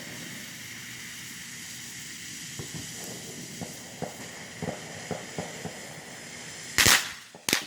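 A lit firework hissing steadily, with scattered small pops. Near the end comes one loud bang, and then dense crackling sets in.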